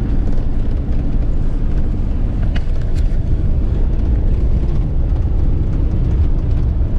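Steady low rumble of road and engine noise inside the cab of a diesel motorhome on the move.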